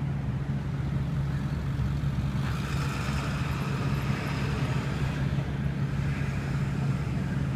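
Rooftop HVAC and refrigeration equipment running with a steady low hum. A broader rush of noise builds about two and a half seconds in and fades by about five seconds.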